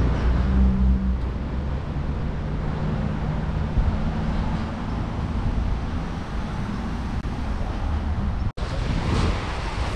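Motor vehicle engine running close by: a steady low drone with road noise.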